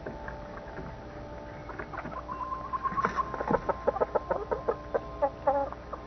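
Chickens clucking: a quick run of short calls starts about two seconds in and stops just before the end, with one drawn-out note near the start of the run.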